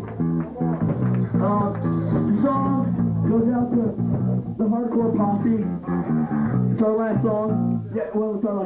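Live band playing a song: guitar and bass guitar, with a voice singing over them.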